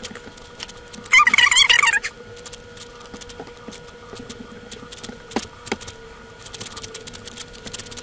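Rapid plastic clicking of a YJ MoYu Aosu 4x4 speed cube being turned during a solve, growing faster near the end. About a second in, a loud wavering squeak lasts just under a second.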